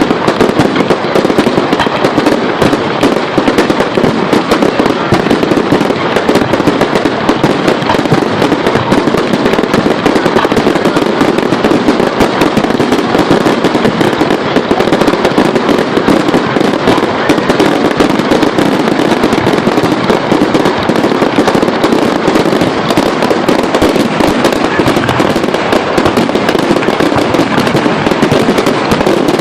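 Fireworks display: a loud, dense and unbroken barrage of bangs and crackling, the reports so close together that they run into one continuous roar of noise.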